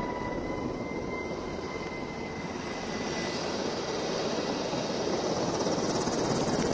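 Helicopter noise: a steady rush of rotor and engine sound with a fast rotor chop, growing slightly louder toward the end.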